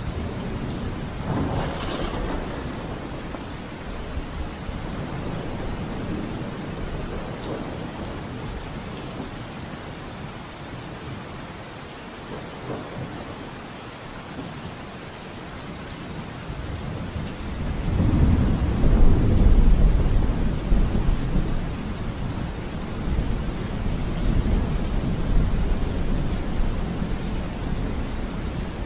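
Steady rain with rolling thunder: a low rumble about two seconds in, and a louder, longer one from about eighteen to twenty-one seconds.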